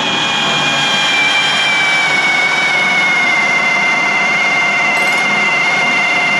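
Handheld pneumatic air tool running without a break against a steel body pillar: a steady high whine over the hiss of air. Its pitch sinks slightly over the first two or three seconds as it bears into the metal, then holds.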